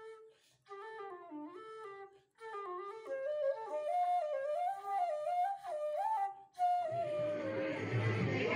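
Background music: a flute playing a flowing melody in short phrases with small gaps between them. About seven seconds in, a rushing noise with a low rumble rises beneath the tune.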